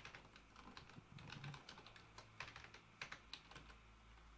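Typing on a computer keyboard: faint, irregular key clicks as a word is typed out.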